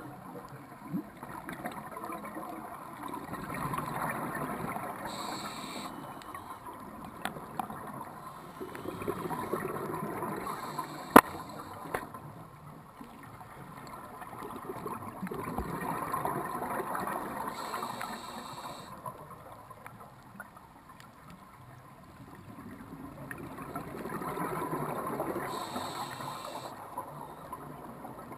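Scuba breathing underwater: a regulator's hissing inhalations and the bubbling of exhaled air, swelling and fading four times at about six to seven seconds apart. One sharp click about eleven seconds in.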